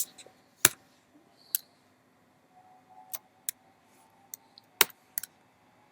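Sparse, irregular clicks of a computer keyboard, about eight single presses spread over six seconds, one at a time rather than in a typing run.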